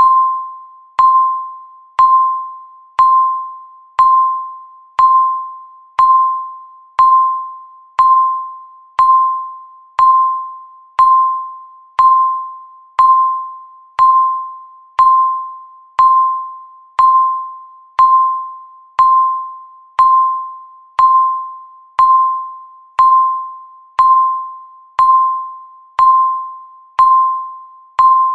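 Countdown timer sound effect: a single high, bell-like ding sounding once every second, each one starting sharply and fading away before the next.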